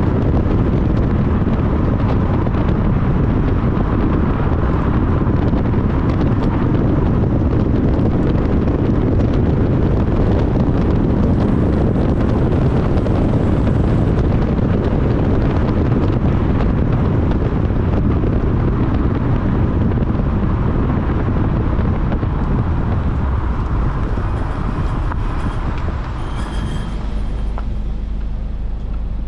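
Honda Civic Type R (FL5) on the move: steady tyre and wind noise, easing a little near the end.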